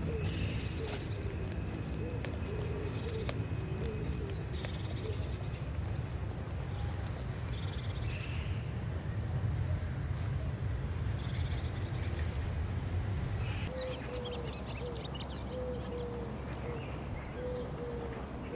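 Outdoor birdsong: several small birds singing and calling in short repeated phrases and trills, with a slower series of low cooing notes, over a steady low rumble that eases about fourteen seconds in.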